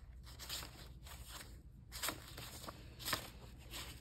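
Thin printed paper sheets rustling faintly as they are shuffled in the hands, with a few short crisp rustles, the sharpest about two and three seconds in.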